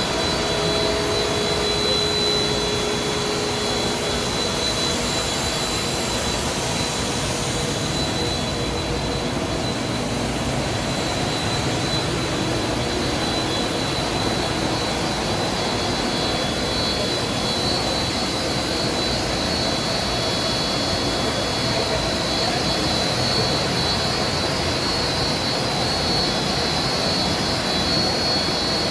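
A plastic blown-film co-extrusion line (FK/BFS-55/65/55-1400-TS) running. It makes a steady machine-hall rush of noise with a few high, steady whining tones on top, unchanging throughout.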